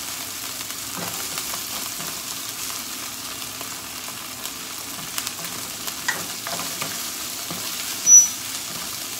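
Onion, green onion and canned tuna sizzling in olive oil in a nonstick frying pan while a wooden spoon stirs and scrapes through them. Scattered light knocks come in the middle, and one sharp high click about eight seconds in.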